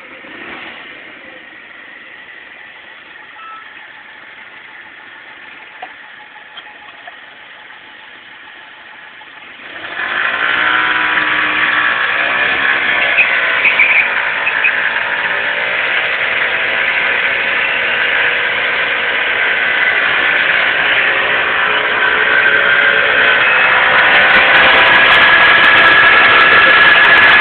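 Small moped-style scooter engine running at a low, moderate level. About ten seconds in it is revved hard and held at high revs while the rear tyre spins against the ground in a smoky burnout, getting louder still near the end.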